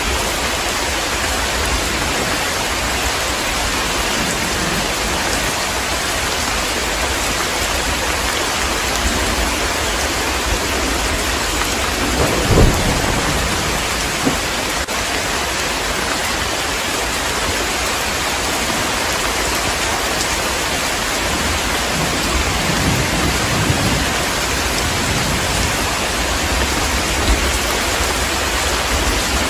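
Heavy rain pouring steadily, with a short low rumble of thunder about halfway through and a longer, rolling one later on.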